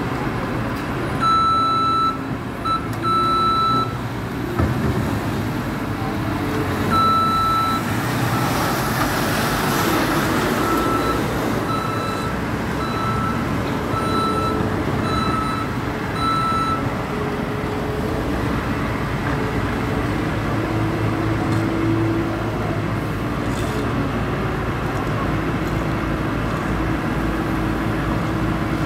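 Caterpillar skid-steer loader's back-up alarm beeping over its running engine and road traffic: a few irregular beeps of varying length, then a run of six short beeps about one a second that stops partway through. A broad rushing swell rises and falls in the middle.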